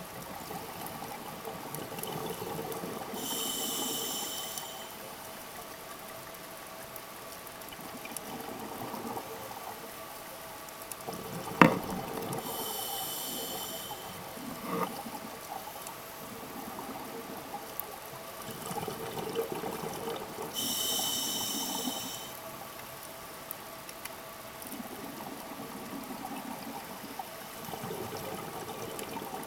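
Scuba diver breathing through a regulator underwater: three hissing inhalations about eight seconds apart, each followed by a rush of exhaled bubbles. A single sharp knock about halfway through.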